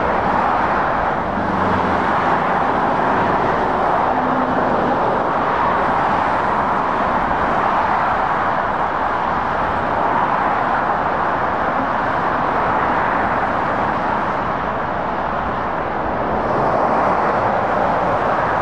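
Steady motorway traffic noise: the tyre and engine rush of lorries and cars passing at speed, with a faint engine hum coming through briefly a couple of seconds in and again about four seconds in.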